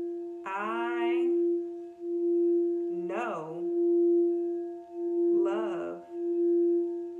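A singing bowl sounding one steady ringing tone that swells and fades in slow waves. Three short vocal sounds that rise and fall in pitch come over it, about half a second, three seconds and five and a half seconds in.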